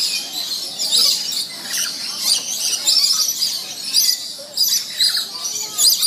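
Lories and lorikeets screeching and chattering, many shrill calls overlapping continuously.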